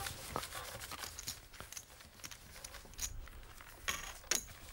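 Poker chips clicking as players handle them at the table: a scatter of short, sharp clicks at irregular times, the loudest two close together near the end.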